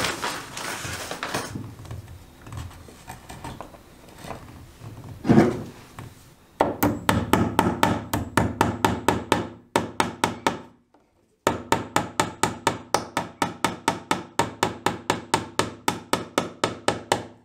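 A hammer striking in a fast, even rhythm, about three blows a second, with a short break about eleven seconds in. Before the hammering, for about six seconds, there are scattered handling and rubbing noises.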